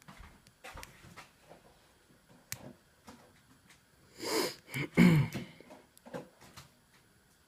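Small scattered clicks and scrapes of a hook pick and tension tool working the pins of a 6-pin euro cylinder lock. Two louder breathy noises come about four and five seconds in.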